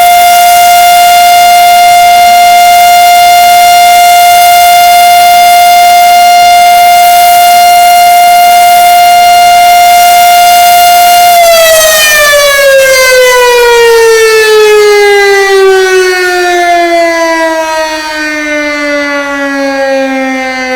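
Fedelcode Model 5A single-tone, three-phase outdoor warning siren sounding a loud, steady tone at full speed. Just past halfway it begins winding down, its pitch falling slowly and its level easing.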